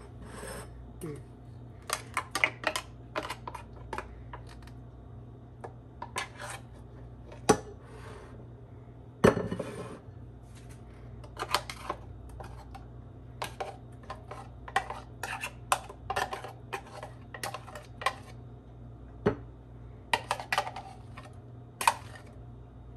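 Metal spoon scraping and tapping thick hummus out of a plastic mini food-processor jar into a ceramic bowl: irregular clinks and scrapes of spoon on plastic and china, with one louder knock about nine seconds in.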